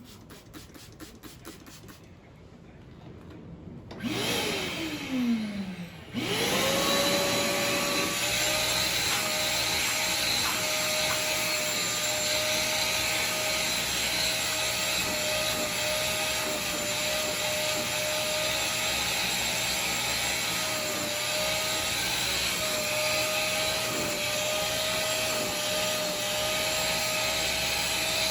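Wet-and-dry vacuum cleaner motor. About four seconds in it sounds with a falling pitch, then about six seconds in it starts up, rising quickly to a steady high whine that holds.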